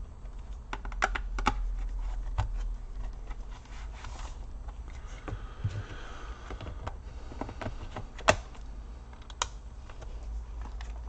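Scattered sharp clicks and taps of a Toshiba Portégé R830 laptop's plastic case and parts being handled during reassembly, the sharpest click about eight seconds in, over a steady low hum.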